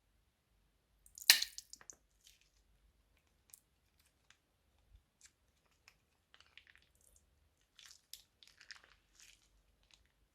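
Crunchy slime crackling as it is pressed and squeezed by hand: one sharp crackle about a second in, then scattered small crackles and pops, coming thicker near the end.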